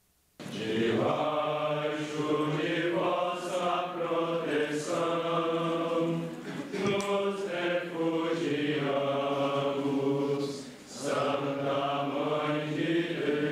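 Voices singing a slow chant over a steady low held note, in long phrases with brief breaks about seven and eleven seconds in.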